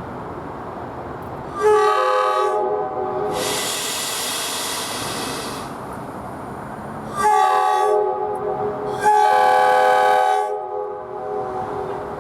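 Nathan K5LA five-chime air horn on a SEPTA train sounding three blasts: one about two seconds in, then two more in quick succession in the second half. A loud hiss lasting a couple of seconds fills the gap between the first and second blasts.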